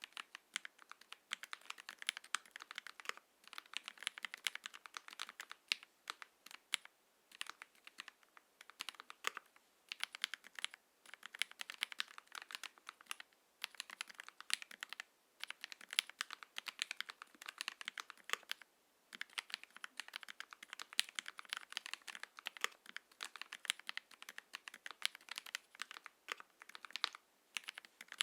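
Steady typing on an Ikki68 Aurora mechanical keyboard with hand-lubed Gateron X linear switches, an aluminium plate and GMK keycaps: a rapid run of keystroke clacks with a few short pauses.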